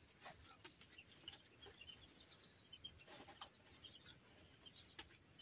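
Near-silent room tone with faint bird chirps and a high whistle sliding downward about a second in, plus a few soft clicks as dry twigs are handled at a clay hearth.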